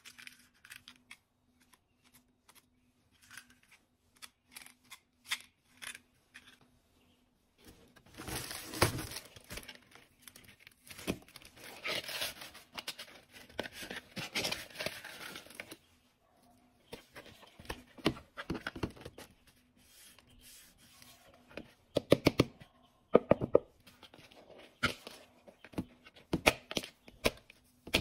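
Scattered clicks of a hard-plastic toy folding knife being handled, then a long stretch of plastic wrapping being torn and crinkled off a toy helmet, followed by sharp knocks and taps of the hard plastic helmet being turned over.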